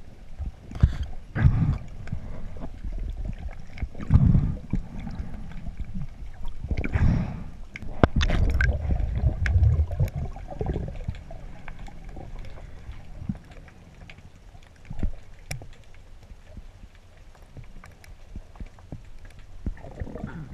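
Underwater sound picked up by a GoPro in its waterproof housing: muffled, irregular gurgling and rushing of water in low swells, louder in the first half and quieter after about 13 seconds, with scattered sharp clicks and knocks.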